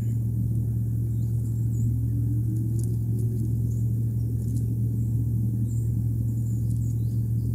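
Steady low rumble with faint high chirps and ticks above it, and a faint tone gliding upward about two seconds in.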